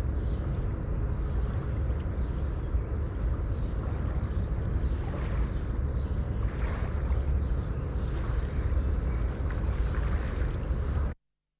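River water rushing steadily with a heavy low rumble, and small birds chirping faintly above it. It cuts off abruptly near the end.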